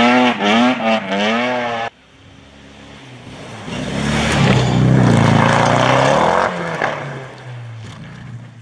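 Rally car engine revving hard and shifting up through the gears as it drives away, cut off abruptly about two seconds in. Then a Volvo saloon rally car approaches at full throttle, passes loudly with a hiss of tyres throwing snow, and fades away.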